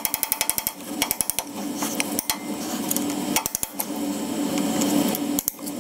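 Hand tools clicking and knocking on metal while the drive shaft's holder is worked apart: a quick run of clicks in the first second, then scattered clicks and knocks over a steady low hum.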